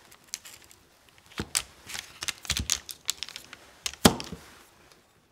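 Kitchen knife slicing through a block of unsalted butter on its paper wrapper over a wooden board: a run of soft, crisp clicks and paper crackles, with the loudest single tap about four seconds in.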